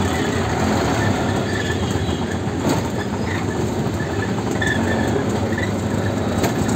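Steady rumble and rattling from inside a moving auto-rickshaw, its small engine running and its body clattering over rough ground, with a few faint short squeaks.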